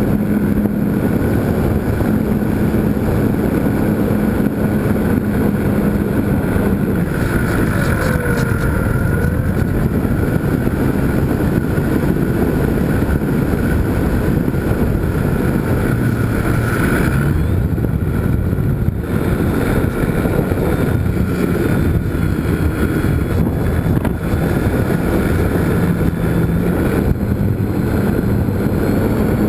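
Electric motor and propeller of a GWS Slow Stick RC airplane running in flight, heard from a camera on the airframe, with wind rushing over the microphone. The motor's pitch shifts about seven seconds in and changes again a few times after.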